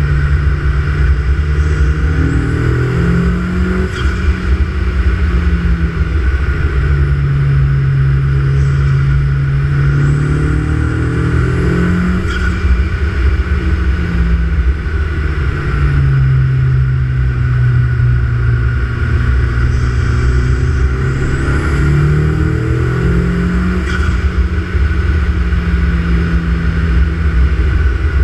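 Turbocharged car engine heard at its open Pipercross air intake, its pitch climbing in steps and dropping back about three times. Each climb carries a rising turbo whistle and ends in a short sharp burst from the Bailey DV30 blow-off valve.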